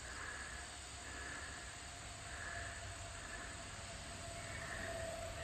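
Outdoor pond-side ambience: faint calls repeat about once a second over a steady hum-like tone and a low rumble.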